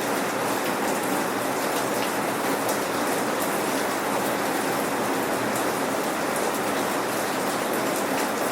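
Steady rain without thunder, a constant hiss of rainfall with scattered sharp drop ticks.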